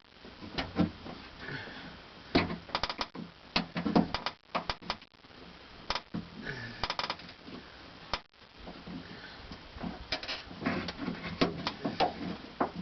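Irregular clicks, taps and knocks of a screwdriver prying a plastic clip and bracket out of a 1999 Honda Accord's front outside door handle.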